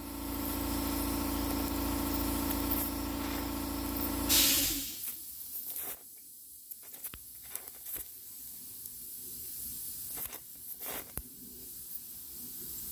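Oxy-fuel gas-welding torch flame hissing while tack-welding thin sheet metal. A steady hum runs with it for about the first four seconds, ends with a short louder rush of hiss, and leaves a fainter hiss with a few small clicks.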